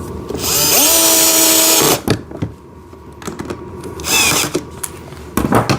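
Power drill driving in a screw. The motor spins up to a steady whine for about a second and a half, then a shorter second burst slows as it stops. A few light knocks near the end.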